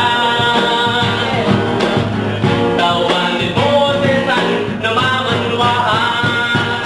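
Live singing with strummed acoustic guitars, played at a steady rhythm.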